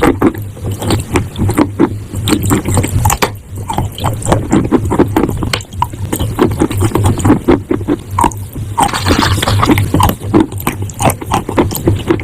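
Close-up crunching of chalk and clay: a dense run of irregular crisp crackles and crunches, some of them wet, over a low steady hum.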